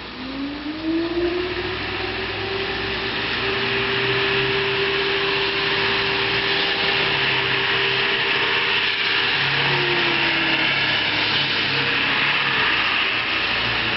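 Federal Signal STL-10 fire siren sounding a test: it winds up in pitch over the first couple of seconds, then holds a steady wail, with a short dip in pitch about ten seconds in.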